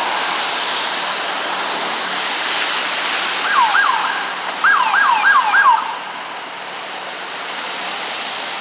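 Steady road-traffic noise, with an emergency vehicle's siren giving short falling whoops a few seconds in: two, then four in quick succession.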